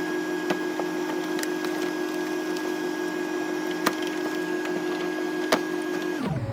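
A few sharp plastic knocks and clicks as a radiator fan shroud is worked down into place, over a steady machine hum that cuts off abruptly near the end.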